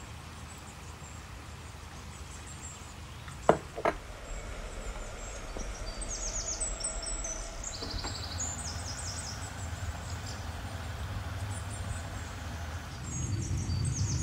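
Small birds chirping in short quick runs over a low steady rumble that grows louder near the end, with two sharp knocks about three and a half seconds in.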